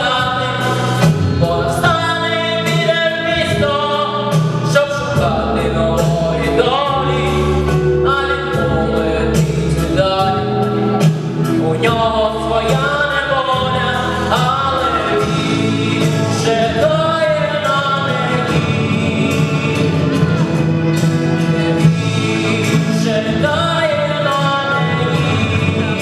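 Singing with instrumental accompaniment: a sung melody over a steady backing.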